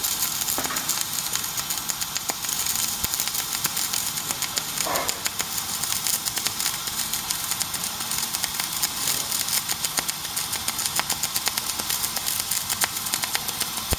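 Flux-cored arc welding on stainless steel plate: the arc gives a steady crackling hiss, dense with fine rapid crackles, without a break.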